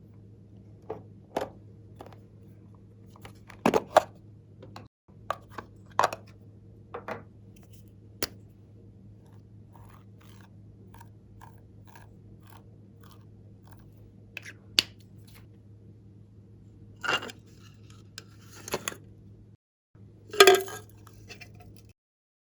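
Glossy slime being worked by hand: scattered sticky clicks and crackles, with a louder crackling squish about twenty seconds in, over a faint steady hum.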